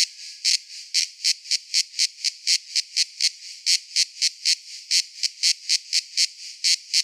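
Cicada calling in a train of high-pitched rasping pulses over a steady buzzing hiss. The pulses quicken after the first second to about four or five a second.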